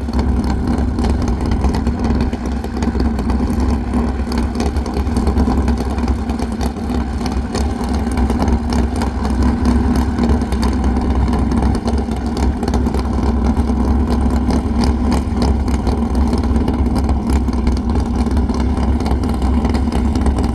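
Engine idling steadily with an even low rumble and no clear revs.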